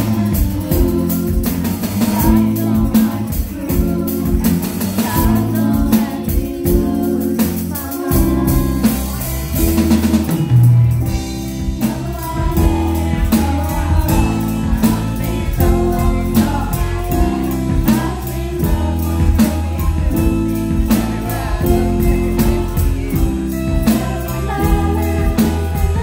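Live band playing a song: drum kit keeping a steady beat under electric guitars, with a voice singing.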